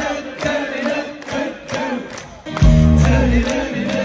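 Live band playing through a PA, heard from within the crowd: a lead singer over drums, bass and electric guitar. A heavy bass part comes in about two and a half seconds in and is the loudest part.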